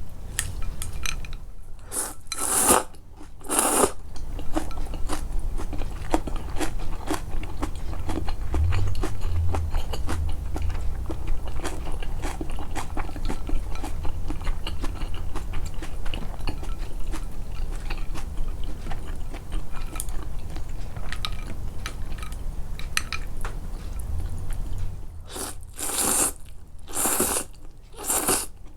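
Close-miked chewing, a steady run of small wet clicks, broken by a few short loud slurps of somen noodles about two seconds in and again near the end.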